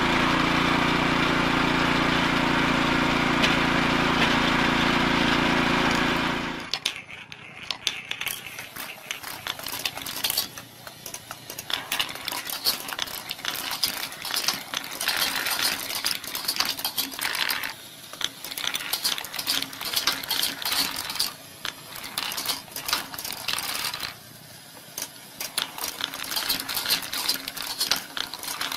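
A small petrol engine runs steadily, driving a homemade screw log splitter as a log is pushed onto it, and cuts off about six seconds in. Then steel balls click and rattle through a wooden marble machine, in irregular runs of quick ticks with short pauses.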